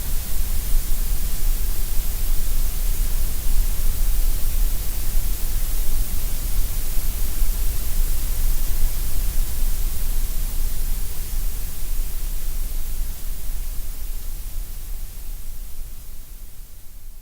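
Gray noise: a steady, even hiss with a strong low rumble and bright top end, thinner in the middle. It fades out over the last few seconds.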